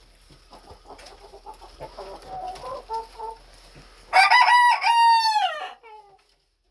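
Chickens in a coop: quiet clucking, then about four seconds in a rooster crows once, a loud call that holds its pitch and falls away at the end.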